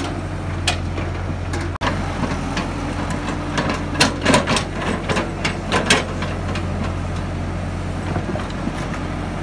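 Cat excavator's diesel engine running steadily, with a quick run of sharp clanks from the machine between about four and six seconds in as it works its bucket and track in the mud.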